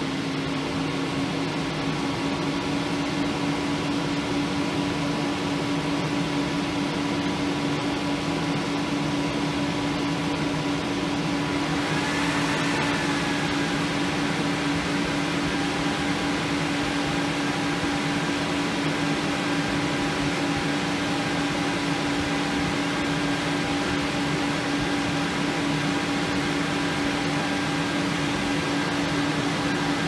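Desktop PC fans running flat out: the Corsair H100i's two 120 mm radiator fans and the Nvidia RTX 2060 Super Founders Edition's two fans. It is a steady rush of air with a constant low hum underneath.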